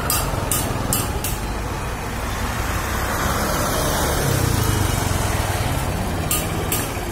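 Road traffic: engines of three-wheeled CNG auto-rickshaws and a box truck with tyre noise, swelling as a vehicle passes close about three to five seconds in. A fast high pulsing, about two or three a second, runs over it at the start and again near the end.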